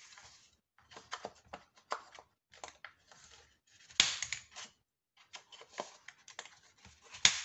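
Handheld corner-rounder punch clipping the corners of a sheet of cardstock, with paper rustling as the sheet is turned and fed in. Sharp snaps of the punch, the loudest about four seconds in and near the end.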